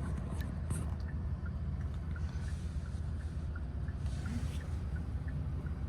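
Car engine and road noise heard from inside the cabin: a steady low rumble, with faint light ticks about once a second.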